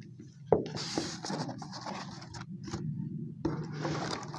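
White plastic tubs being packed into a cardboard box: a knock about half a second in, then plastic scraping and rubbing against cardboard, with small clicks.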